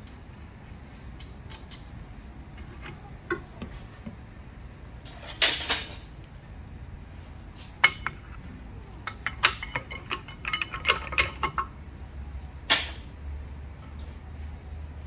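Metal clinks, taps and scrapes from a car's rear disc brake as the caliper is prised off with a screwdriver and the brake pads are worked out of the caliper bracket. A rattling scrape comes about five seconds in, a run of clinks follows past the middle, and a sharp knock comes near the end.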